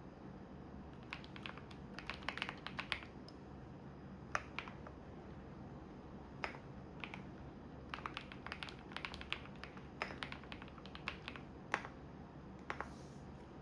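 Typing on a computer keyboard in irregular bursts of key clicks with short pauses, over the steady low hum of a washing machine running.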